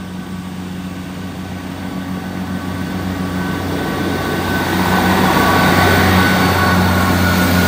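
East Midlands Railway Class 158 diesel multiple unit approaching and passing over the level crossing. Its diesel engine hums steadily under a rumble of wheels on rail, which grows louder as the train comes close, loudest in the second half.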